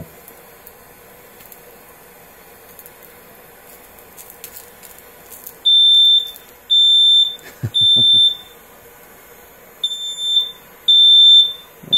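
Smoke alarm going off about halfway through: a loud, high-pitched steady beep, repeated in threes with a short pause between groups, the standard fire-alarm pattern. Before it there is only the quiet hiss of a propane torch burning.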